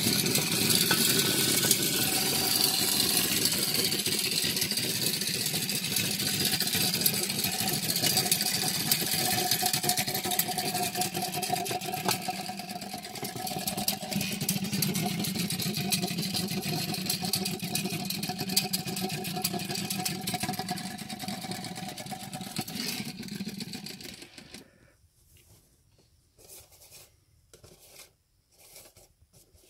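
Clockwork mechanism of a 1970s Feber wind-up Scrooge McDuck toy whirring steadily with rapid clicking as the spring unwinds, stopping abruptly about 24 seconds in once it has run down. A few faint knocks of handling follow.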